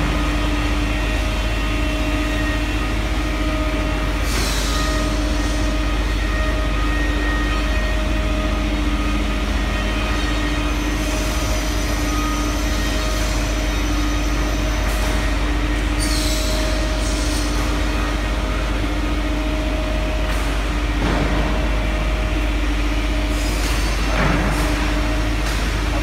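Buckle machine's water-recycling unit running with a steady electric motor hum: a low drone with a steady mid-pitched tone over it. A few brief rustling scrapes as the plastic hoses are handled.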